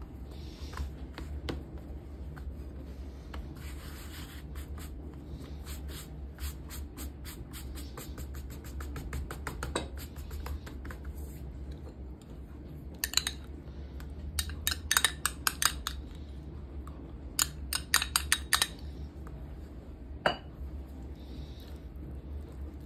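A metal spoon clinking and scraping against a small glass bowl while tomato-paste sauce is stirred, in quick clusters of sharp taps, loudest after the middle, with one last tap near the end. A steady low hum runs underneath.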